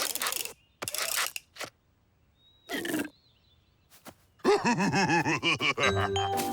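Cartoon sound effects: a few short, noisy whooshes or hits with silent gaps between them, then a loud sound that wavers up and down in pitch from about halfway through. Music with bell- or xylophone-like notes comes in near the end.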